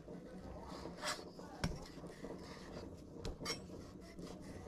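Large chef's knife slicing raw beef thin on a wooden cutting board: soft drawing strokes through the meat with a few sharp knocks of the blade on the board, the loudest about a second and a half in.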